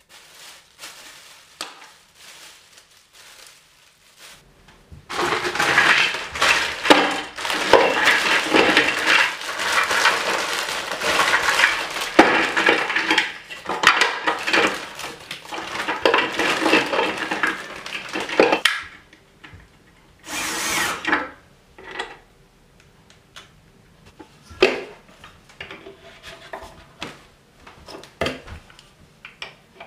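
Plastic bags crinkling and rustling loudly as they are handled, for about thirteen seconds, followed by a short rustle and then a few scattered light knocks of hard plastic cabinet feet being set down on a plywood panel.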